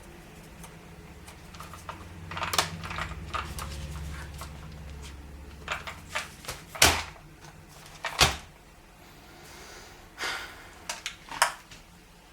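Hands handling a boxed RC car and its packaging: a series of irregular clicks and knocks, the two loudest about seven and eight seconds in, with a low rumble under the first few seconds.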